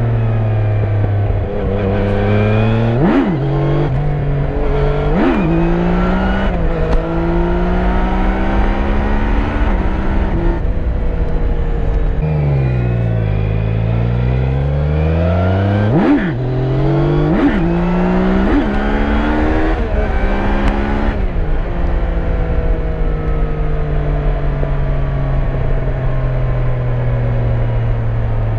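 Yamaha Niken GT's 847 cc liquid-cooled three-cylinder engine pulling hard through the gears, its pitch climbing and breaking at two upshifts near the start. Around the middle the revs fall away and rise again, then there are three quick upshifts in a row before it settles into a steady cruise for the last third.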